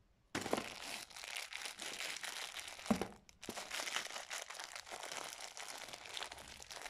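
Thin clear plastic bag of small candy-coated sweets crinkling as it is handled, starting about a third of a second in, with a short pause about three seconds in.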